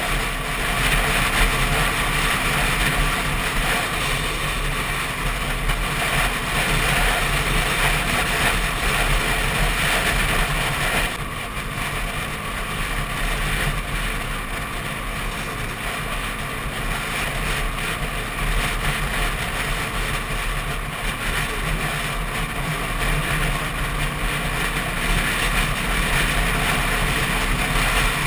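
Steady wind rush on a camera riding on a Yamaha WR125 motorcycle at road speed, with the bike's engine running underneath; the wind noise eases a little about eleven seconds in.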